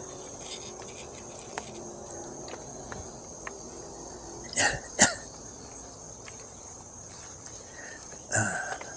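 Crickets chirping steadily in a high, even trill. Two short, loud, sudden sounds come about halfway through and another near the end.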